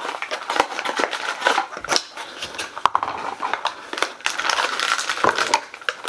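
Two people opening small cardboard blind boxes and crinkling the gold foil wrappers around the figures inside: an irregular run of crackling and rustling with many sharp little clicks.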